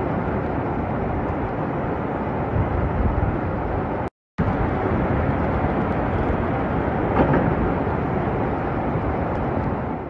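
Floodwater rushing through a street: a loud, steady rushing noise that cuts out for a moment about four seconds in and carries on unchanged.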